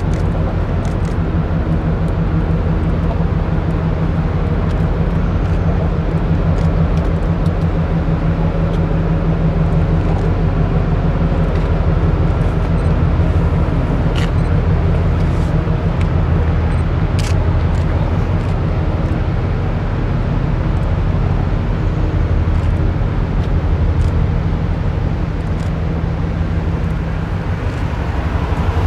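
Deep, steady drone of a cruise ship's diesel engines as it passes close below, with a rushing hiss over it.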